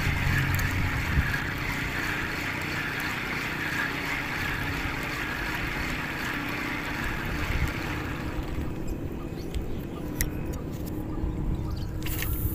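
Small boat underway on the water: a steady rushing hiss that fades out about eight seconds in, followed by a few light clicks.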